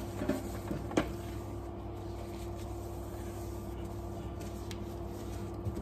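Light handling sounds from cleaning a stainless steel gas stovetop with a sponge: a few soft knocks just after the start and one sharp click about a second in, over a steady low hum.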